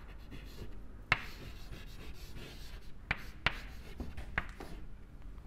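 Chalk writing on a chalkboard: soft scraping strokes broken by a few sharp taps as the chalk hits the board.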